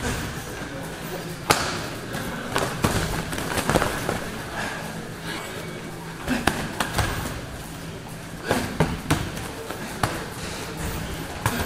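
Sparring strikes landing: boxing gloves and shin-guarded kicks hitting a body and gloves, heard as sharp slaps and thuds at irregular intervals, in quick clusters of two or three with pauses between.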